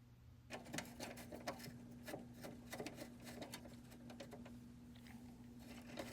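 A small power screwdriver or drill running steadily while backing out the screws that hold the furnace's draft inducer fan, with irregular clicks and rattles of the screws and tool against the sheet-metal housing; it starts about half a second in.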